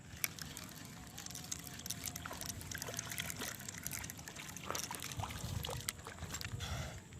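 Water trickling and dripping, with many small splashes and clicks scattered throughout.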